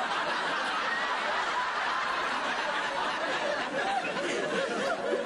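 Studio audience laughing steadily.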